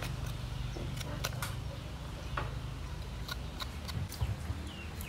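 Small knife scraping the skin off a fresh ginger root in short, irregular strokes that give sharp little clicks, over a steady low hum.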